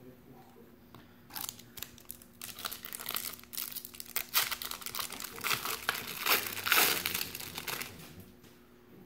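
A Fleer Ultra basketball card pack wrapper being torn open and crinkled by hand: a dense run of crackles and tearing from about a second in until near the end, loudest in the middle.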